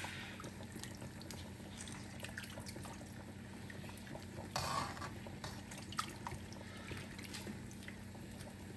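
Faint bubbling and dripping of seasoned broth in a cooking pot, with scattered small clicks and a steady low hum underneath. A short louder rush of sound comes about four and a half seconds in.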